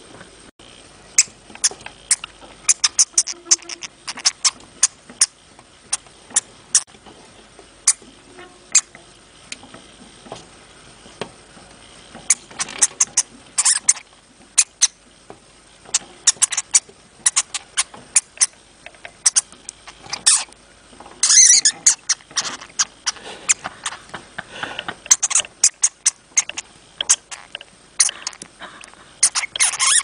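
Hamster making many sharp, high clicks and squeaks, coming irregularly and often in quick clusters, with a denser burst about two-thirds of the way through.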